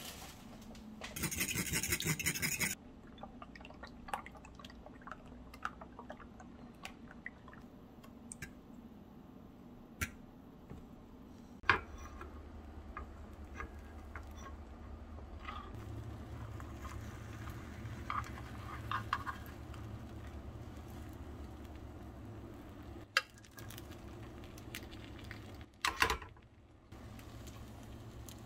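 Kitchen work sounds: a brief rush of water about a second in, then scattered clinks and knocks of dishes and utensils, with a low steady hum joining about halfway through.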